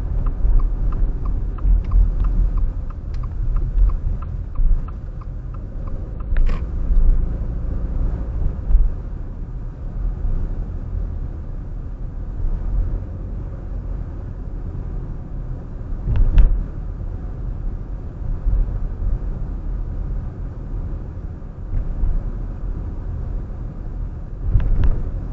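A car driving, with a steady low rumble of engine and road noise. For the first six seconds or so a fast, regular ticking runs over it and ends with a sharp click, and single sharp clicks come about midway and near the end.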